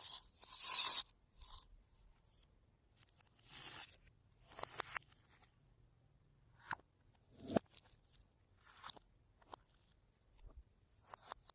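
Slime being handled and mixed with crunchy add-ins: crackling, crunching and tearing noises in irregular bursts, the loudest about a second in, then scattered clicks and rustles.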